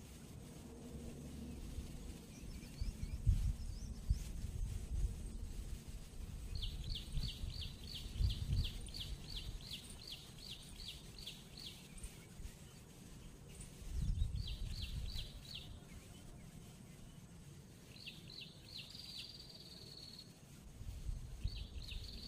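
A bird calling in runs of short, high, falling notes, about three a second: a long run in the middle, shorter runs later, one ending in a held note. Low wind rumble on the microphone comes and goes and is loudest in a few gusts.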